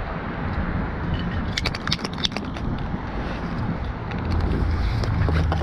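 City street traffic, a steady low rumble that grows a little louder about four seconds in. A cluster of light clicks and rattles comes about two seconds in, with a few more near the end.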